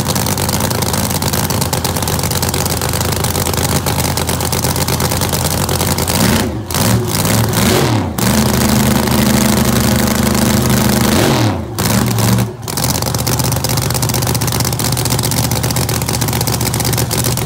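Holden HG drag car's engine running at a loud, lumpy idle, then revved up about six seconds in, held high for roughly three seconds, and dropped back to idle.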